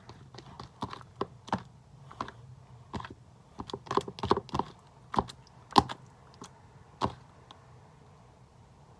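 Sticky slime being worked and pulled apart in the hands, giving irregular sharp sticky clicks and pops that come thickest about four to six seconds in and die away near the end.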